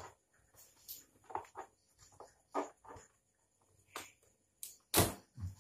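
Scattered light clicks and knocks from hands handling the boards and cables inside an opened LED TV, the loudest a sharp knock about five seconds in.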